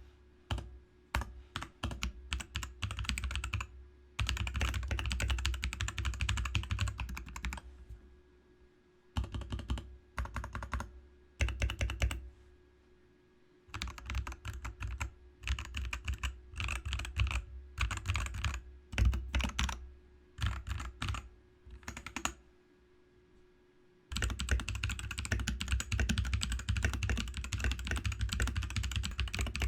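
Mechanical keyboard being typed on in runs of fast key clicks, with short pauses, for a test of how its case sounds with different dampening. A faint steady hum lies beneath.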